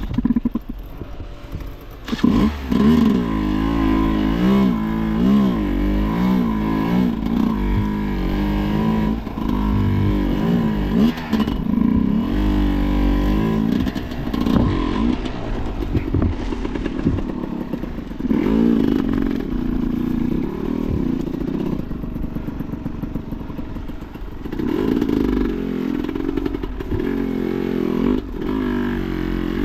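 Sherco enduro motorcycle engine revving up and down again and again, every second or two, as it is ridden hard, with scattered knocks and clatter throughout.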